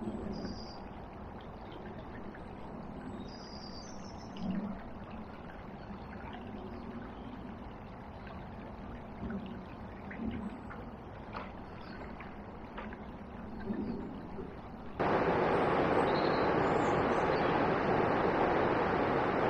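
Flooded river water: a low steady murmur with a few soft knocks, then, about fifteen seconds in, a sudden switch to a much louder, even rush of fast-flowing floodwater.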